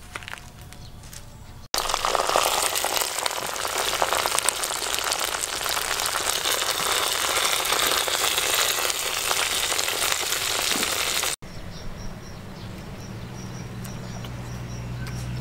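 Pieces of duck frying in a pot, a dense sizzle and crackle that starts abruptly a couple of seconds in and cuts off abruptly about three-quarters of the way through.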